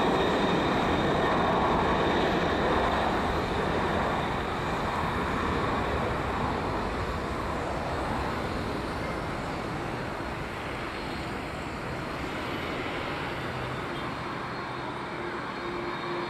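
Boeing 747-400 jet engines at takeoff power, a steady rushing rumble that is loudest at first and slowly fades as the aircraft rolls away down the runway. Near the end a steady low hum comes in.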